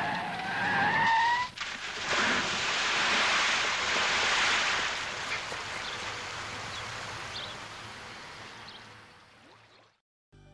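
A short tyre squeal rising in pitch, then a car plunging into water: a loud rush of water that slowly fades away.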